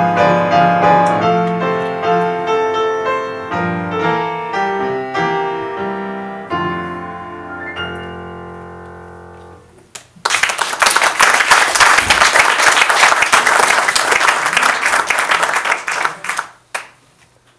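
Piano playing the closing bars of the song, ending on a held chord that dies away. About a second later an audience breaks into applause that lasts about six seconds and then stops.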